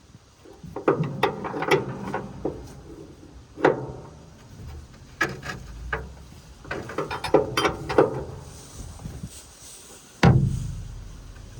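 Irregular knocks and clanks of wrench and hand work on a Gleaner L2 combine's cylinder adjustment, with one loud bang about ten seconds in that rings out briefly.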